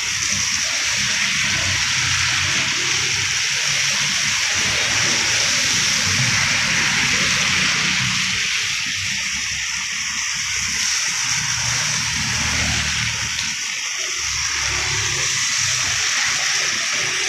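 Cars and motorbikes driving past on a wet road: a steady hiss and splash of tyres on wet asphalt, with engine hum underneath that swells as vehicles pass close.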